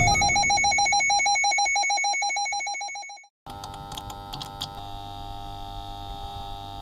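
Rapid electronic beeping, many short pulses a second, that fades away over about three seconds. After a brief dropout comes a steady electronic hum.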